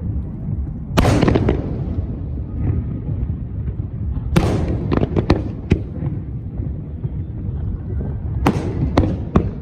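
Fireworks bursting in three bouts: a big bang about a second in, a quick run of bangs around the middle, and another run near the end, each followed by crackle. A steady low rumble of crowd and wind noise sits underneath.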